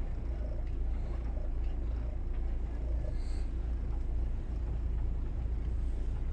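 Twin diesel engines of a Bayliner 4788 motor yacht running at low, maneuvering speed: a low, steady rumble.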